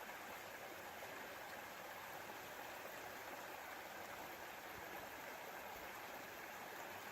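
Faint, steady rush of a stream's flowing water, with no distinct events.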